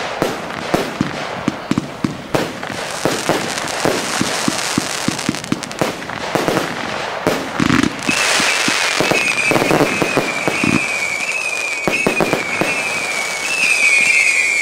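Fireworks display: a rapid run of sharp pops and crackles, then from about eight seconds in a shrill, wavering whistle from whistling fireworks that slowly falls in pitch, with scattered bangs still going off.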